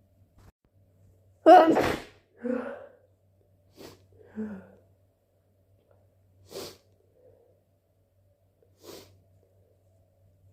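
A person sneezing once, hard and suddenly, about a second and a half in, followed by two short voiced breaths. Three brief nasal bursts follow, spread over the rest.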